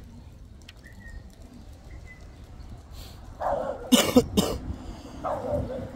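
A dog barking several times in quick succession, rough and loud, starting about halfway in after a quiet stretch.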